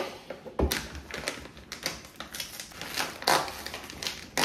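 Plastic protein-powder pouch crinkling and crackling in irregular bursts as it is handled and pulled open, with a thump on the counter about half a second in.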